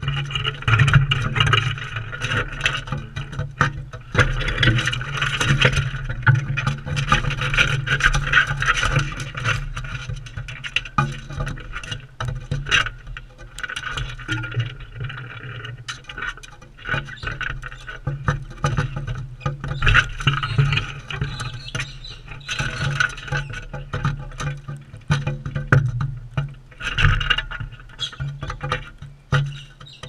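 Galahs feeding right at the microphone: a dense run of quick clicks and scrapes from beaks and claws working seed on the feeding tray, with bouts of rasping noise coming and going.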